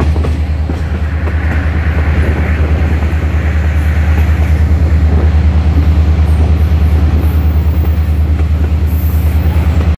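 A passenger train running behind EMD GP9 and GP30 diesel locomotives. There is a loud, steady low diesel drone with a regular pulse, mixed with rail and car rattle from the moving train.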